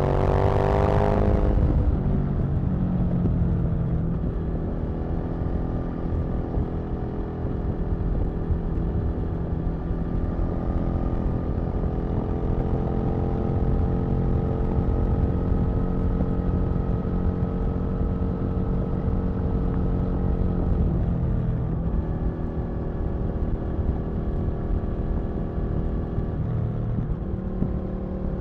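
Aprilia RSV Mille's 998 cc V-twin engine, heard from the rider's seat. The revs fall sharply about a second in, then the engine pulls at a fairly steady pitch that rises slowly, with changes in engine speed about two-thirds of the way through and again near the end.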